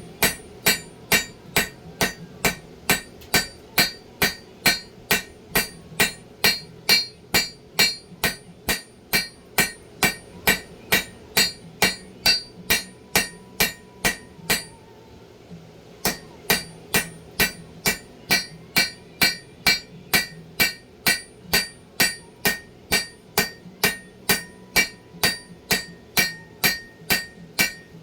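Hand hammer striking a hot damascus steel billet on an anvil, a steady run of blows about two a second, each with a bright metallic ring. The hammering stops for a moment about halfway, then resumes at the same pace.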